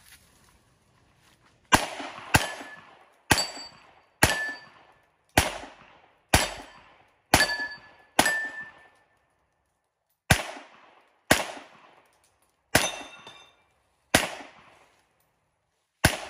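Pistol shots fired at about one a second, fourteen in all with a longer pause near the middle, each trailing off in a short echo. Several shots are followed by the brief ring of a hit steel plate.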